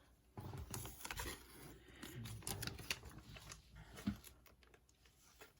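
Trading cards and their packaging being handled: a scatter of soft, irregular clicks and rustles.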